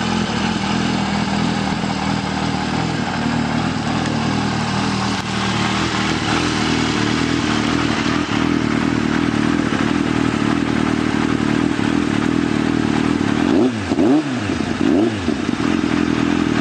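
Yamaha XJR 1300's air-cooled inline-four running through an Akrapovic exhaust, idling steadily after a cold start. Near the end the throttle is blipped twice, the engine note rising and falling quickly each time.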